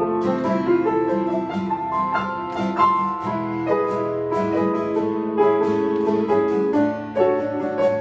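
Acoustic guitar strummed and piano played together in an instrumental jam on a chord progression.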